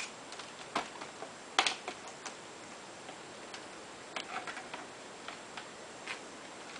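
Irregular light clicks and taps of small hard parts being handled during laptop screen disassembly: a screwdriver, loose screws and the plastic and metal of the LCD panel. The sharpest knock comes about a second and a half in, and a quick run of taps follows about four seconds in.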